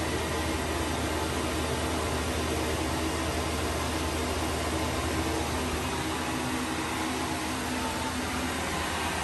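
The cheap built-in blower fans of two Airblown inflatables running steadily as they inflate: an even rush of air over a low motor hum.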